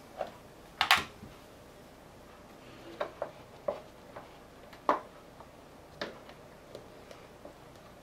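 Scattered light clicks and knocks as a Kool-Stop tire jack is hooked onto a bicycle rim and pressed against the tire bead. The sharpest click comes about a second in, and another firm knock comes near the middle.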